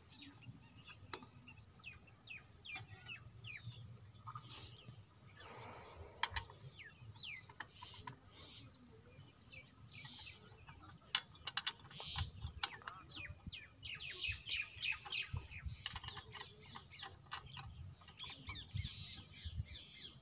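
Birds chirping in the background, many short quick calls that grow busier in the second half, with a single sharp knock about eleven seconds in.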